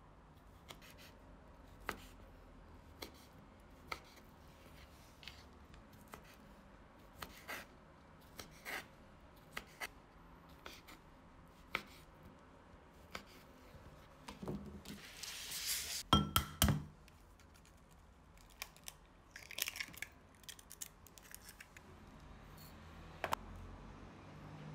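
Kitchen knife slicing sausages on a bamboo cutting board: the blade taps the board sharply, about once a second. About two-thirds of the way through there is a louder stretch of rustling and a few heavy knocks.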